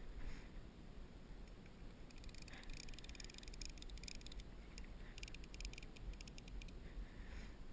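Rapid, high clicking in two runs of about two seconds each, the second starting about five seconds in, over a low steady rumble.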